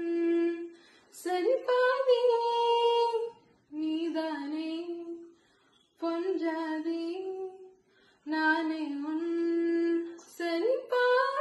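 A girl singing a song solo and unaccompanied, in phrases of about two seconds with long held notes and short pauses for breath between them.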